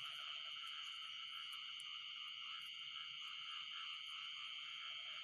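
Steady night chorus of frogs and insects in a flooded rice paddy, several layered trilling bands running on without a break.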